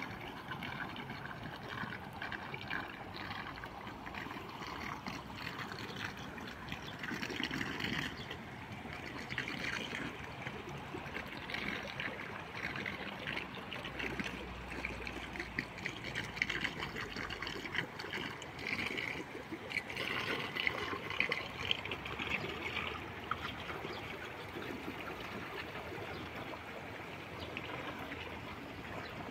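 Pool water running and trickling steadily.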